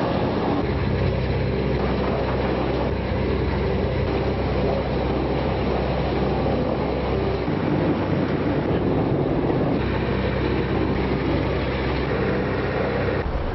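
Doppstadt SM 720 mobile trommel screen in operation: a steady low engine hum under the continuous noise of the rotating screening drum and conveyors. The low hum weakens for a couple of seconds about halfway through.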